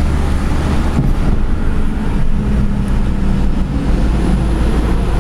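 Car driving along a street, heard from inside its cabin: a steady low rumble of engine and road noise.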